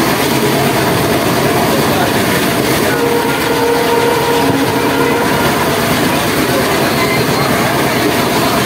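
Passenger train coach running along the track at speed, heard from its open doorway: a steady loud rush of wheel and rail noise mixed with air rushing past.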